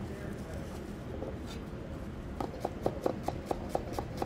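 Chef's knife chopping fresh parsley on a wooden cutting board: quick, even knocks about four a second, starting about halfway through. Before that, soft rustling as the parsley leaves are gathered into a pile.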